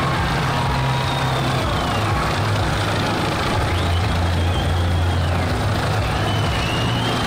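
Helicopter flying low overhead: a steady low engine and rotor hum that drops in pitch about two seconds in and rises again after five seconds. Faint high whistling tones glide up and down above it.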